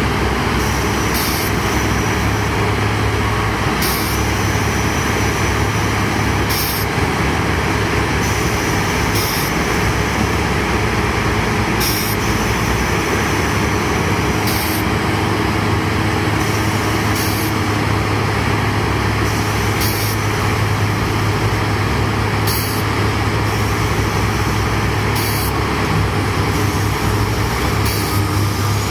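Heavy diesel engines of a backhoe and vibroseis trucks running steadily with a deep, constant hum, as the backhoe works to free a vibroseis truck stuck in deep mud.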